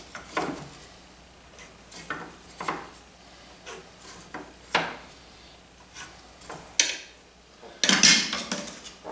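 Small wooden block and metal tools being handled: scattered knocks and short scrapes, with a louder stretch of rough scraping about eight seconds in, as the block is readied for mounting between lathe centres.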